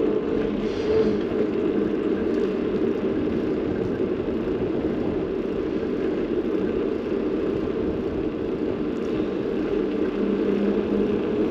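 Steady rushing noise of a moving bicycle ride, with wind on the microphone and the road under the tyres, unbroken throughout.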